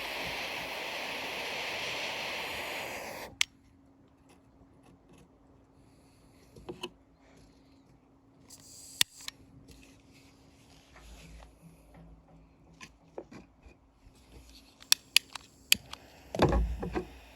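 Hot air rework gun blowing a steady hiss that cuts off about three seconds in. Scattered light clicks and taps follow, with a low thump and rustle near the end.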